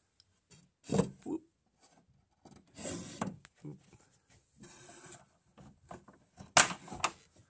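Hand rubbing and knocking against the wooden shelves of a hidden bookshelf door while feeling for its release, a few short scrapes and taps, with one sharp knock about two-thirds of the way through.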